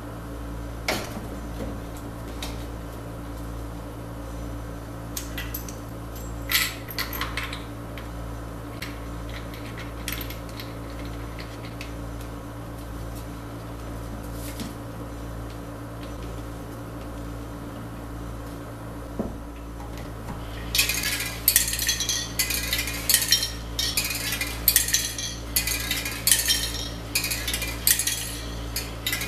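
Mixing balls clattering inside spray paint cans as a slow-turning homemade mixer tumbles the cans, starting about two-thirds of the way in as repeated rattling bursts about two a second. Before that there is a steady low hum, with a few sharp clicks as the can holder is fitted onto the shaft.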